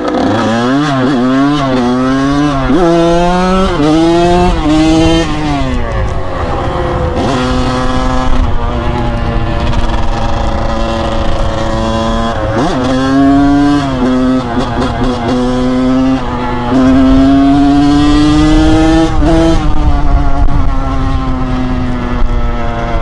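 Kawasaki KX100 two-stroke dirt bike engine revving up through the gears under hard acceleration, its pitch climbing and dropping back at each clutchless upshift. Several quick shifts come in the first few seconds, then it holds a steady high rev, with one brief drop and climb again about halfway through.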